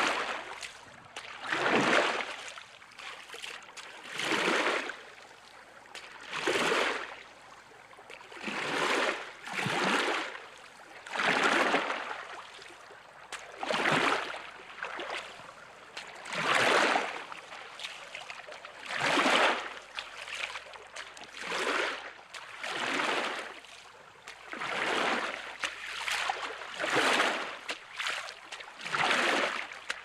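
Rowboat moving through water: a swell of water swishing and rushing with each stroke, about one every two seconds in a steady rhythm.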